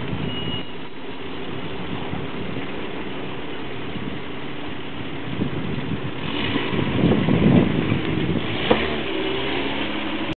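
Jeep Grand Cherokee ZJ engine running at low speed as the vehicle crawls over a dirt mound, getting louder from about six seconds in. A single sharp knock sounds near the end.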